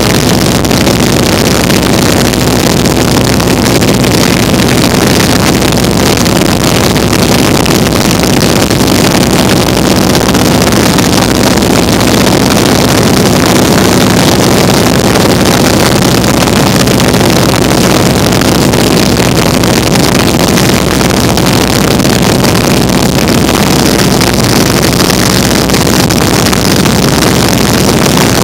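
Vintage open-cockpit biplane in flight: its piston engine and propeller run with a loud, steady drone, mixed with wind rushing over the open cockpit.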